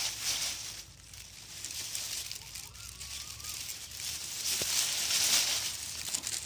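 Dry grass stalks and dead leaves rustling and crackling as they brush and bend against the handheld phone, swelling loudest around five seconds in.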